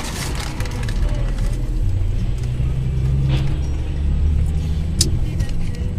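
Steady low rumble of a car's engine and tyres on the road, heard from inside the cabin, with a sharp click about five seconds in.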